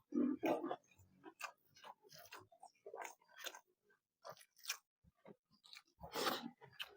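Close-up eating sounds from a person eating a snapper head: irregular wet chewing, lip smacks and sucking clicks, with fuller bursts of chewing at the start and about six seconds in.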